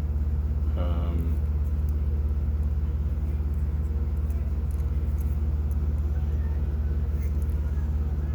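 A steady low mechanical drone with an even hum, like an engine running at idle, with a few faint light clicks of handling over it.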